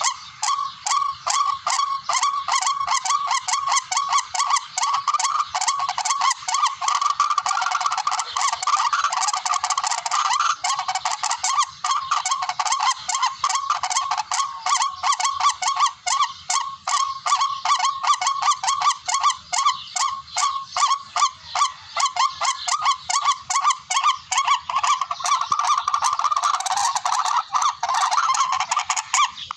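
Recorded tikling (rail) call played as a hunting lure: short notes repeated several times a second without a break, thickening a third of the way in and again near the end.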